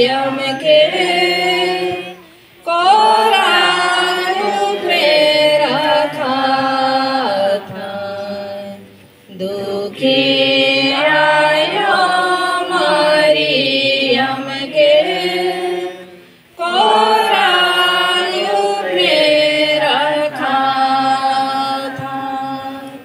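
A group of voices singing a devotional hymn in unison, in long held phrases with short breaths between them, fading out near the end.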